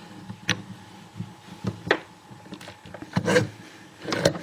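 Handling noise as a clear plastic disc detainer training lock is set back into a vise: a few separate knocks and clicks, with a short scrape a little after three seconds in.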